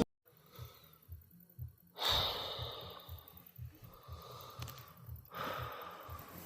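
Two slow breaths close to the microphone, about two seconds in and again about five seconds in.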